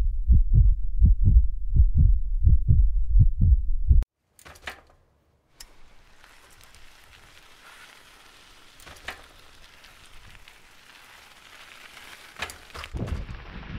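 Edited-in intro sound effect: deep, regular thuds at about three a second that stop abruptly about four seconds in, followed by a couple of sharp clicks and a faint hiss with scattered ticks. Near the end, wind noise on the action camera's microphone comes in as the ride footage starts.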